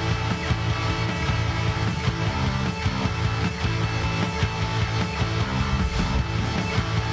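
Rock theme music with guitar, playing at a steady level.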